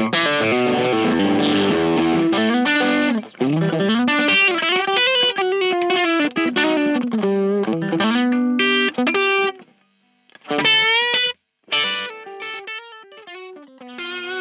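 Single-coil Telecaster electric guitar played through the Keris overdrive/boost pedal into a clean amp, in quick country-rock licks with string bends and short pauses between phrases.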